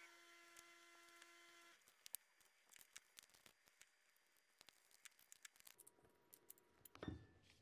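Near silence with scattered faint clicks and taps of metal HVLP spray-gun parts being fitted and threaded together by hand. A faint steady hum stops about two seconds in.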